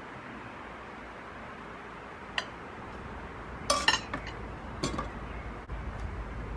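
A few sharp clinks of dishes and cutlery being handled: one about two and a half seconds in, then a quick cluster around four seconds and another near five seconds, over a steady hiss.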